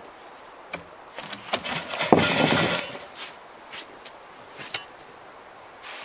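Hammer blows knocking on a freshly chainsaw-milled Douglas fir log. A few sharp knocks build into a loud, clattering wooden crash about two seconds in, followed by a few lighter knocks.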